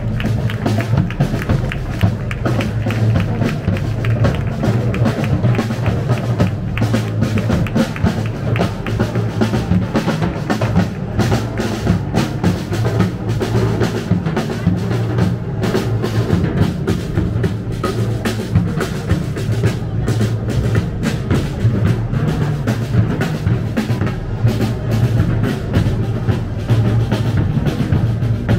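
Festival parade band playing in the street, with drums beating throughout and a heavy bass drum.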